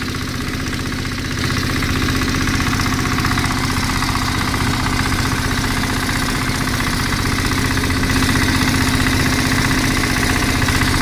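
A fishing boat's engine running steadily at a constant speed with an even, rapid firing pulse, getting slightly louder about a second and a half in.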